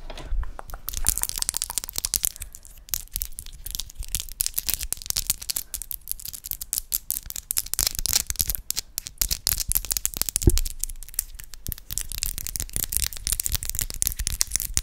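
Close-miked ASMR hand sounds: fingers plucking and scratching at a condenser microphone's grille, a dense, uneven run of fast crackly clicks and rustles.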